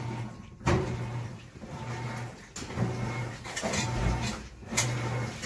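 Handling sounds at an electric water heater's thermostat compartment: soft rustling and a few sharp knocks as the wires are folded back into place, over a low hum that comes and goes.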